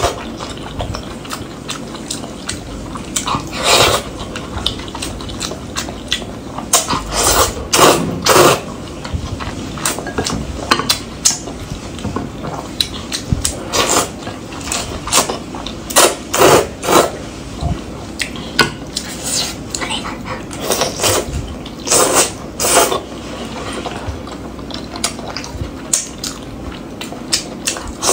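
Close-miked eating: loud, wet slurps of hot and sour glass noodles and chewing, in irregular bursts from a fraction of a second to about a second long.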